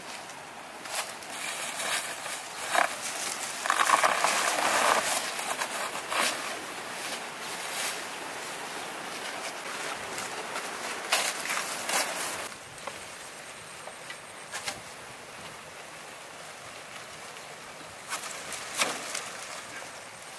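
Rustling and knocking of banana bunches being cut and handled among dry banana leaves and grass, with footsteps. There is a louder rustle about four seconds in, and scattered knocks later on.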